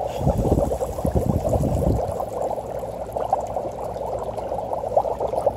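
A large chunk of dry ice bubbling vigorously in water in a stainless steel bowl: a steady, dense gurgling of many small pops. A low rumble runs under it for the first couple of seconds.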